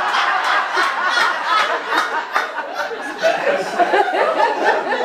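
Audience laughing together at a punchline, many voices at once.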